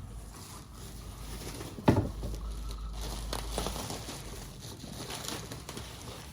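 Scattered rustling and clattering of things being handled, with one sharp thump about two seconds in, over a steady low hum.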